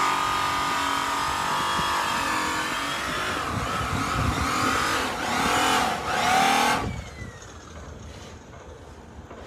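Diesel truck engine running and revving, its pitch rising and falling several times, then cutting off abruptly about seven seconds in, followed by a faint falling whine.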